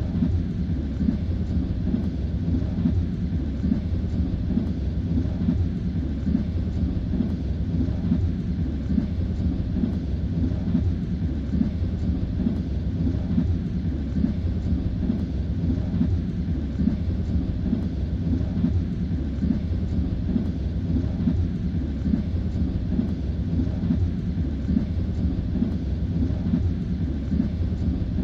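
Passenger train running at speed, heard from inside the carriage: a steady low rumble with the rhythmic clatter of the wheels over the rail joints.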